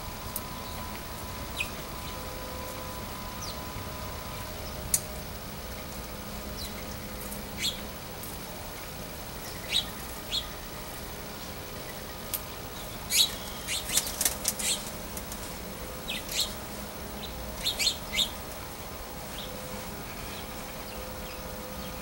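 Small birds at a seed feeder: scattered short, sharp chirps and clicks, coming thickest in two clusters past the middle, over a faint steady hum.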